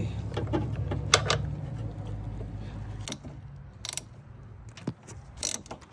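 Ratchet wrench turning the rear engine mount bolt, a fast rattling run for about three seconds, then a few separate metallic clicks and knocks.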